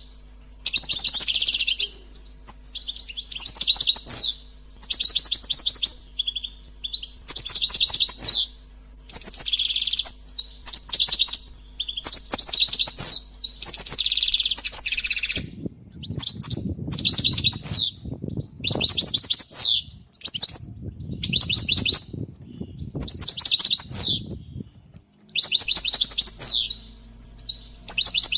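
European goldfinch singing: bursts of fast, twittering phrases, each about a second long, repeated with short pauses. From about 15 to 25 seconds in, a low rumbling noise runs underneath the song.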